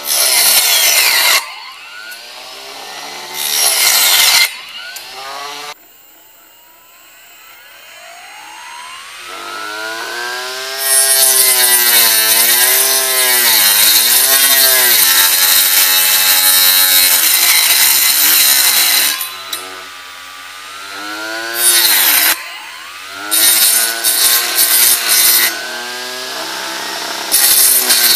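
Homemade table saw with a circular blade driven by a 1000KV brushless drone motor, cutting thin strips of wood. The motor whines, its pitch dipping and recovering under the load of the cut, with loud bursts of cutting noise several times, the longest for about eight seconds in the middle.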